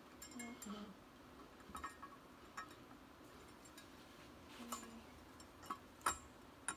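Faint, scattered metallic clicks and light ticks from the steel plates and friction discs of a John Deere 310D backhoe's reverser clutch pack, turned and pressed by hand to seat them in the housing. The sharpest clicks come in the last second or so.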